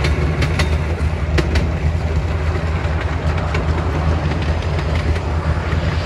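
G16 miniature park train running along its 16-inch-gauge track, heard from aboard an open car: a steady low rumble with scattered sharp clicks from the wheels on the rails.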